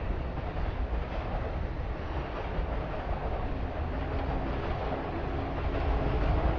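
A train running past on rail tracks: a steady rumble, with a faint motor tone coming in about four seconds in and rising slightly.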